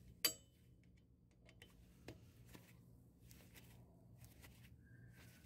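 A screwdriver working the metal retaining clip on a parking brake cable at a drum brake backing plate. There is one sharp metallic click with a short ring about a quarter second in, a smaller click about two seconds in, and a few faint ticks and scrapes. Otherwise it is near silence.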